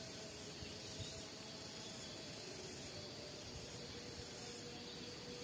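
Faint, steady outdoor ambience of insects trilling, with a soft hiss.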